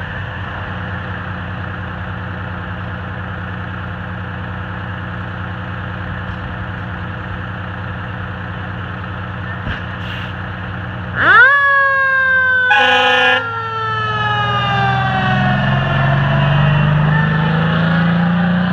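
A fire engine's engine runs steadily. About eleven seconds in, its siren winds up sharply and then slowly falls in pitch, with a short horn blast a second later. The engine's pitch then climbs as the truck pulls away.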